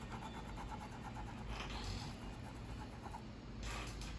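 Paintbrush scrubbing on cloth in quick, even short strokes, stopping a little under two seconds in; a couple of soft rustles follow.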